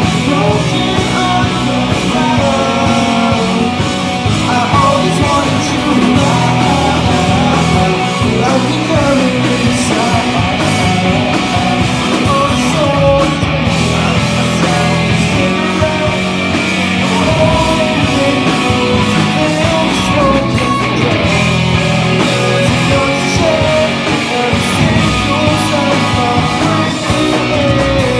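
A pop punk band playing live: loud distorted guitars, bass and drums with a singer's voice over them.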